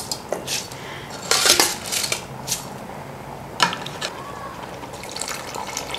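Soaked basmati rice being tipped into a pot of boiling stock, with scattered clinks and scrapes of a metal utensil against the pot and one sharper clink about three and a half seconds in.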